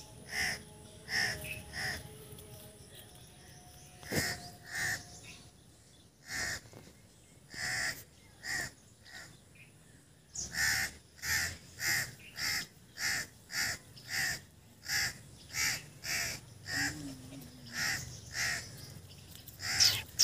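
Crows cawing over and over. The caws are scattered at first, then come in a steady run of about one and a half a second from about halfway through.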